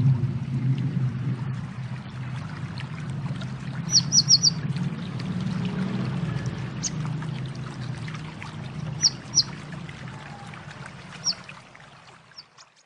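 High, sharp chirps of a konin, a small sunbird: a quick run of four notes about four seconds in, then single and paired notes. They sound over a steady low rushing noise like flowing water, which fades away near the end.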